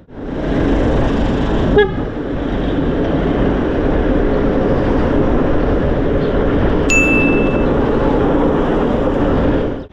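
Steady wind and road rush from riding an electric scooter through traffic, with a short sharp sound about two seconds in and a brief high beep about seven seconds in.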